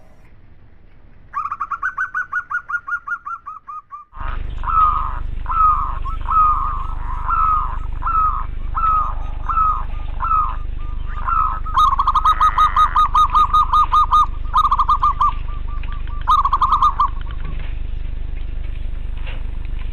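Zebra doves cooing in quick staccato trills of short repeated notes. The first run fades away about four seconds in. A second recording follows with a steady low hum behind it: coo phrases repeat about once a second, with a longer, faster trill in the middle.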